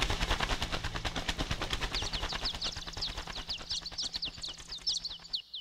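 A dense, rapid crackle of sharp clicks over a low held tone. From about two seconds in, a flurry of short, high, falling chirps like small birds joins it. The low tone stops just before the end.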